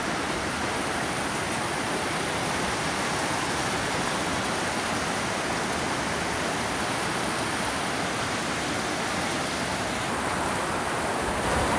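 Flume Brook's rushing water cascading over rocks: a steady, even rush with no pauses.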